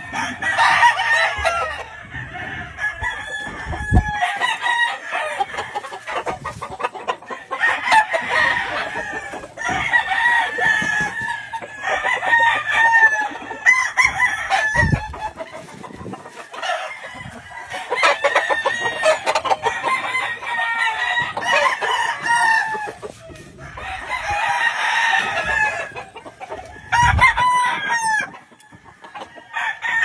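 Several game roosters crowing one after another and over each other, with some clucking between the crows.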